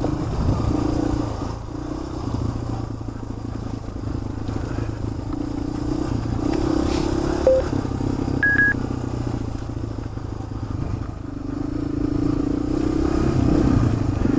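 Motorcycle engine running under way, its note rising and falling with the throttle. Two short beeps sound just past the middle, the second higher than the first.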